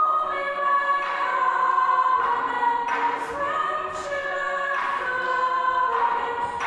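A small vocal group singing a cappella in close harmony, holding chords that change about once a second, each change marked by a short percussive accent.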